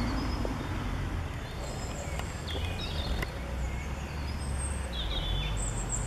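Small birds chirping in short, scattered calls over a steady low background rumble.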